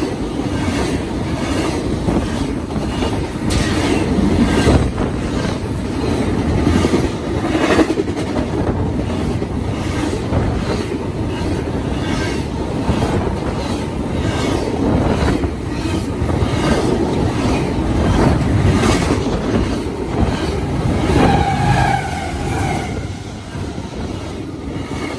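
Double-stack intermodal freight train's well cars rolling past close by: a steady rumble of steel wheels on rail, broken by repeated clicks as the wheels cross rail joints, with a short wheel squeal near the end.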